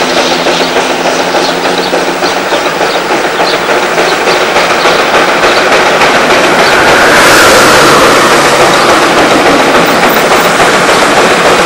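Zillertalbahn narrow-gauge 0-6-2 tank steam locomotive running at speed with its train, its exhaust and running noise heard from a vehicle travelling alongside, over steady road and wind noise. The noise swells about seven seconds in.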